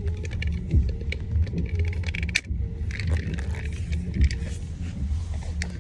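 Plastic clicks, rattles and scraping as a cup-holder phone mount is released and twisted out of a car's cup holder, over a low steady hum.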